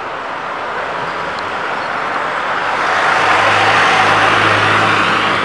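Street traffic with a city bus passing close. Its engine and tyre noise build over the first three seconds and are loudest from about three to five seconds in, with a steady low engine hum.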